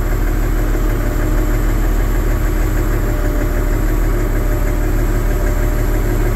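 Massey Ferguson 1135 tractor's six-cylinder Perkins diesel engine running at a steady speed.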